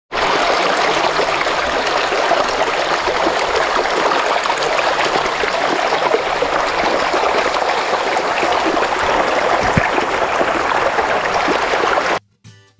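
Steady rushing of flowing water, cutting off suddenly near the end.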